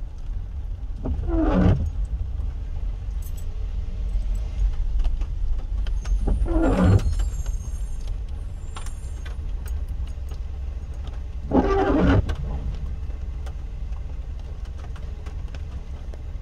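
Low steady rumble of idling engines heard from inside a car. A windscreen wiper on intermittent squeaks and judders across the wet glass about every five seconds, three times.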